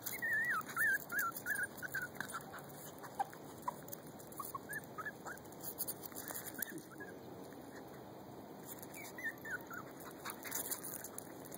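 Young puppies squeaking and whining in short, high-pitched, wavering cries: a quick run of them in the first couple of seconds, then scattered single cries.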